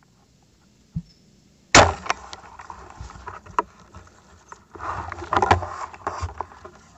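Homemade fishing crossbow fired once, a sharp loud snap of the released string about two seconds in. It is followed by rustling and small knocks that grow busier a few seconds later.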